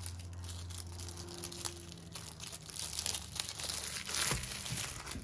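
Clear plastic sleeve crinkling and rustling as a rolled diamond-painting canvas inside it is handled and unrolled. The crinkling comes in irregular bursts and is loudest about four seconds in.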